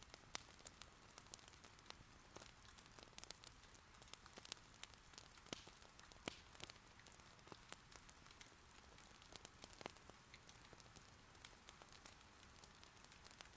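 Faint, steady rain patter with irregular sharp crackles and pops of burning wood in an irori hearth, a few louder than the rest.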